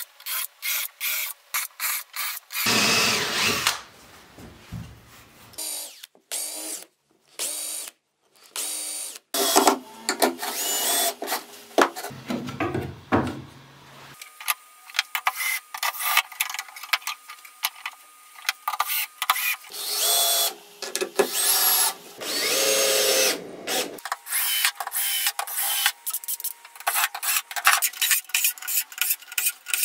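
Cordless Makita drill-driver driving screws into pine slats: the motor whirs in several spells of one to four seconds, between runs of sharp clicks and knocks.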